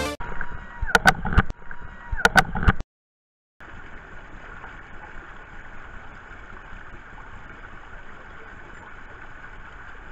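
Water rushing steadily down an open water-slide flume, heard from a rider's onride camera. It is preceded by a few sharp clicks and tones and a brief silence about three seconds in.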